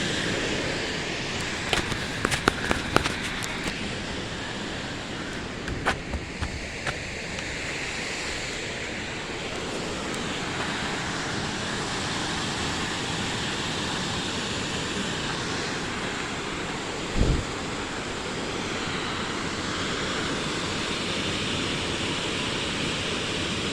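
Steady rushing noise of a large waterfall heard from above. A few sharp clicks in the first seconds and a single low thump about 17 seconds in.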